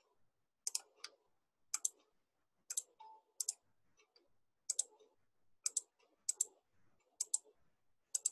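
Computer mouse button clicks, about ten of them spaced roughly a second apart, most heard as a quick press and release.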